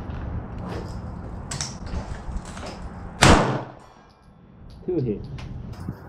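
A single 9mm pistol shot from a Smith & Wesson M&P9 M2.0 compact about three seconds in, with a short echo off the covered firing line. A low hum and a few faint ticks come before it.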